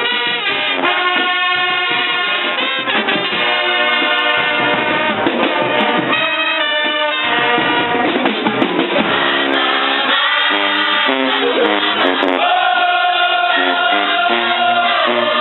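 Live band playing, with a horn section and singing over a drum beat.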